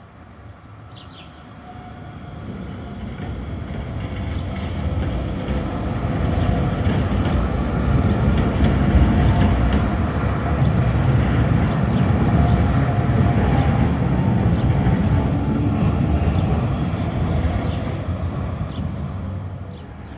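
Two coupled NGTW6 'Leoliner' articulated trams passing, steel wheels on rails: a low rumble that builds over the first several seconds, holds, and fades away near the end.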